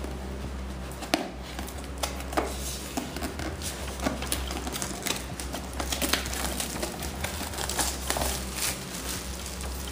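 A phone's cardboard retail box being handled and turned over in the hands: irregular light taps and clicks of fingers and box edges against the cardboard, over a steady low hum.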